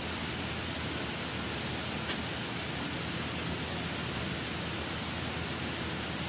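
Steady rushing hiss of moving air in a vehicle workshop, with one faint click about two seconds in.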